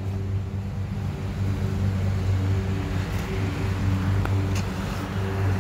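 Steady low mechanical drone of a running motor, with a couple of faint ticks about four seconds in.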